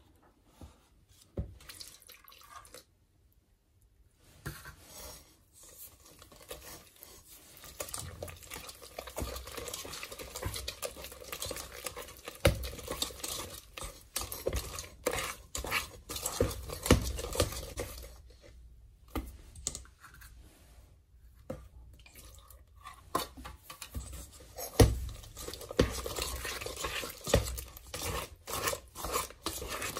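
Hand whisk beating thick cake batter in a stainless steel bowl: wet, sticky stirring with the wire whisk clicking and scraping against the metal sides. Only a few scattered clicks at first, then steady, vigorous whisking from about eight seconds in.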